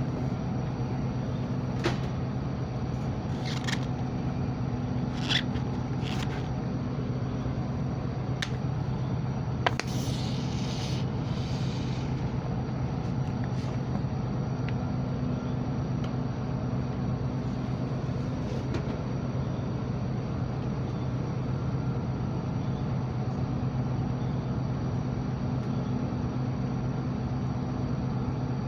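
Steady low machine hum, with a few light clicks and knocks in the first ten seconds and a brief hiss about ten seconds in.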